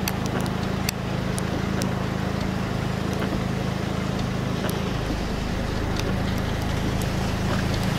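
Steady low hum of an idling engine under an even hiss of wind and rain, with scattered sharp ticks of raindrops.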